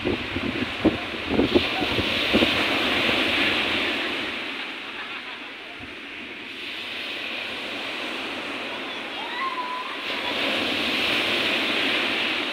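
Surf breaking and washing up a sandy beach: a steady hiss of waves that swells and eases twice. There are a few low thumps in the first couple of seconds.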